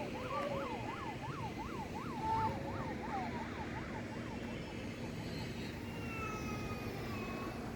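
Electronic siren in a fast up-and-down yelp, about four sweeps a second, fading out after about three and a half seconds over a steady low hum.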